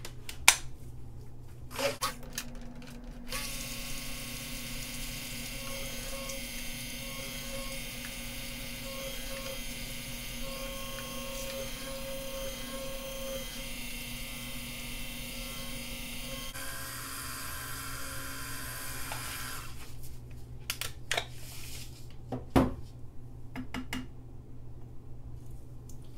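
Handheld stick blender running submerged in a tub of soap oils and beer, mixing the batch. It hums steadily for about thirteen seconds, changes tone about sixteen seconds in, and stops about twenty seconds in, with a few sharp knocks before it starts and after it stops.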